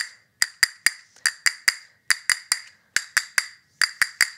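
Hand-held castanets played in a fast finger drill: sharp wooden clicks, about four or five a second in short groups, each with a brief bright ring.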